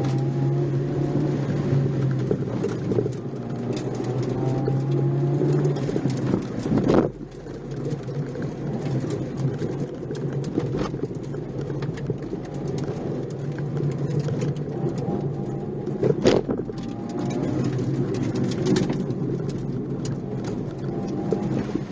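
Nissan March 12SR's 1.2-litre four-cylinder engine heard from inside the cabin, pulling and easing off as the car is driven along a twisty mountain road, its note rising and falling with the throttle. Two sharp knocks, about 7 and 16 seconds in, stand out above the engine.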